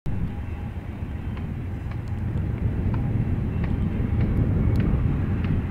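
Low rumble of a diesel-hauled freight train, slowly growing louder, with a few faint short ticks over it.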